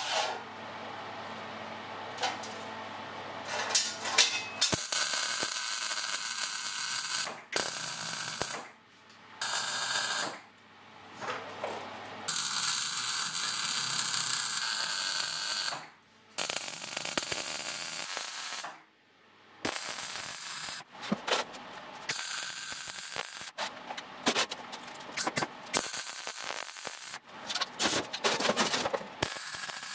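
Electric arc welding on steel plate: the weld runs as a hiss in bursts of one to four seconds with short pauses between them, turning into shorter, quicker bursts over the last third.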